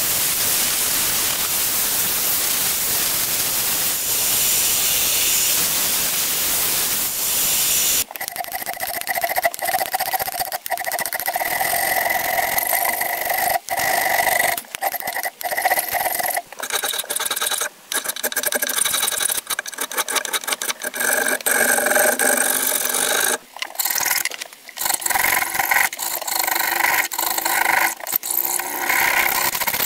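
An angle grinder with a sanding disc runs with a steady hiss on the steel cleaver blade. About eight seconds in, this gives way to a hand file rasping in repeated, uneven strokes along the cleaver's wooden handle scales, each stroke with a slight ringing edge.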